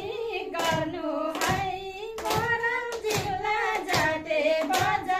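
Two women singing an awareness song from a lyric sheet, with people clapping along in time, about one clap every three-quarters of a second.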